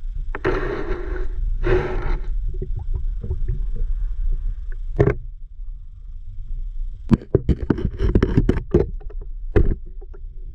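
Sound picked up by a camera held underwater in a river: a steady low rumble, two short rushes of noise near the start, and a run of sharp clicks and knocks in the second half, typical of water movement and handling against the camera housing.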